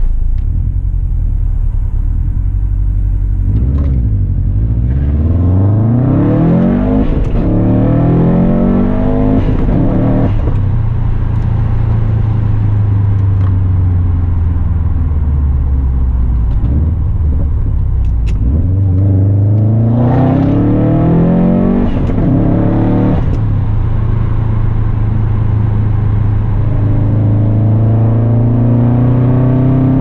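Straight-piped 2008 Subaru Impreza WRX STi with a Tomei Expreme Ti exhaust: its turbocharged 2.5-litre flat-four accelerates hard, revs climbing about four seconds in and again near the twenty-second mark, and settles into steady running between the pulls.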